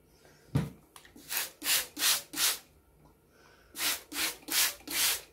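A trigger spray bottle spritzing over paper and lace, with quick hissing sprays in two runs of four, about three a second. A single thump comes about half a second in.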